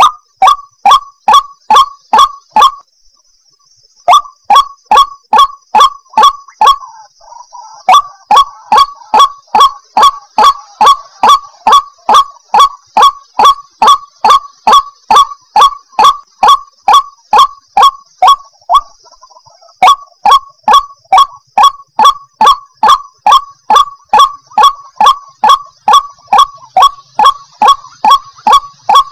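White-breasted waterhen (ruak-ruak) calling: a long run of short, loud calls repeated about three times a second, each dropping slightly in pitch, with brief breaks about three seconds in and again near the middle.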